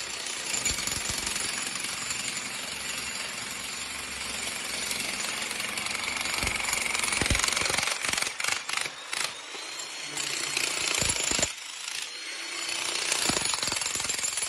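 Powered demolition hammer chiselling rapidly into concrete, breaking it up around a buried pipe. It stops briefly a couple of times past the middle, then starts again.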